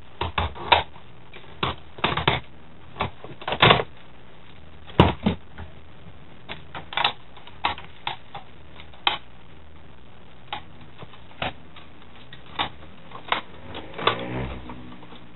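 Irregular sharp clicks and clacks of the plastic casing and parts of an old hi-fi stereo being pried and pulled apart by hand, with a brief scraping sound near the end.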